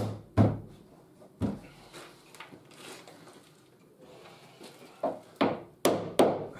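Wooden knocks as a timber stair tread is struck to seat it in place. There are three knocks at the start, then a quieter spell, then four sharp blows in quick succession near the end.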